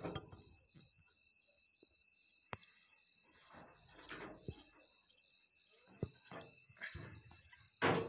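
Cricket chirping steadily in the background, about three short chirps a second, with some rustling and two sharp clicks.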